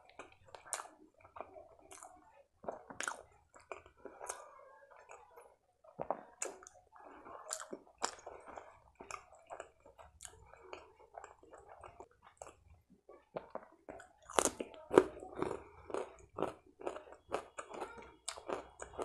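Close-miked mouth chewing: wet smacks and irregular sharp clicks of lips and tongue working a mouthful of soft food. The smacking gets louder for a couple of seconds about three-quarters of the way through.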